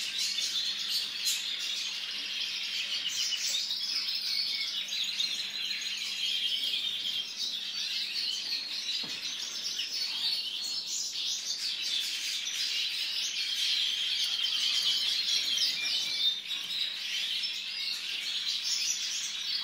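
A caged white-mutation European goldfinch singing without a break, a dense run of quick chirps and trills. A faint steady low hum sits underneath.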